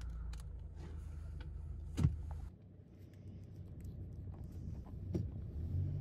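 Low steady rumble of a car heard from inside the cabin, with a few light ticks and rustles. There is a sharp click about two seconds in and another just past five seconds.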